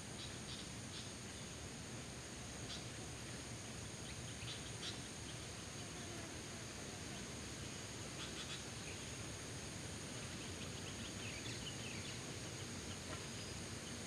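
Faint steady hiss with a constant high-pitched drone, broken by scattered, very short high chirps that come a few at a time, several times over.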